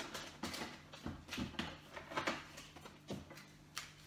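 Rustling and crinkling of plastic-wrapped tackle packets being rummaged out of a cardboard box, in irregular bursts with a couple of sharp clicks near the end.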